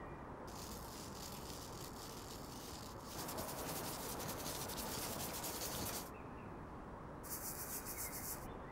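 A brush scrubbed rapidly back and forth across a fine wire-mesh strainer, spattering red food colouring onto a steamed peach bun. Three bouts of quick scratchy strokes, the middle one the loudest and the last one short.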